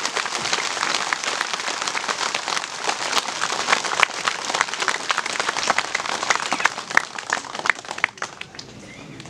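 Outdoor crowd applauding: a dense patter of many hands clapping that dies away about eight seconds in.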